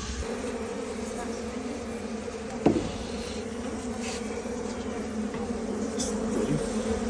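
Swarm of honeybees from a traditional log hive buzzing in a steady hum, growing a little louder toward the end, with a single sharp knock just over a third of the way in.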